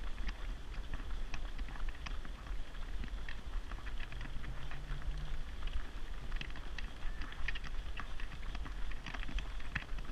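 Running shoes of a pack of runners slapping on a tarmac road, many quick irregular footfalls, over a steady low rumble.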